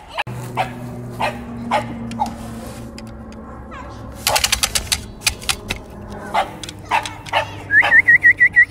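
Dogs giving short, separate barks now and then. Near the end comes a quick run of repeated high chirping notes.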